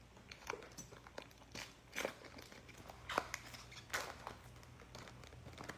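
Trading-card pack handled with gloved hands: faint crinkling of the foil wrapper and cards sliding and flicking against each other, giving scattered, irregular soft clicks.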